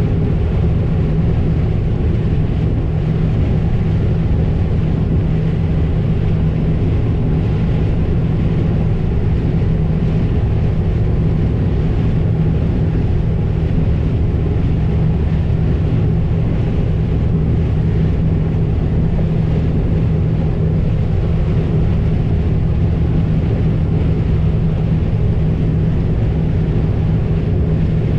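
Combine harvester running steadily at working speed, a constant low hum with no breaks or changes.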